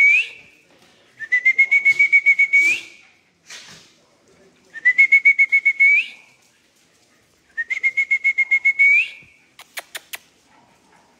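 A person whistling to call dogs in: repeated warbling whistles, each about a second and a half long, held on one pitch and flicking upward at the end. A few sharp clicks come near the end.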